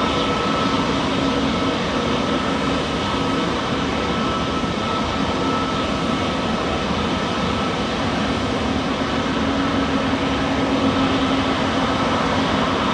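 Airliner jet engines running steadily: a constant rush of noise with a steady high whine over a lower hum.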